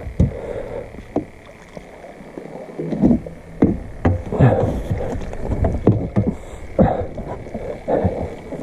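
Irregular knocks and thumps on a fishing boat, with a few brief swishes, over a faint steady high-pitched hum.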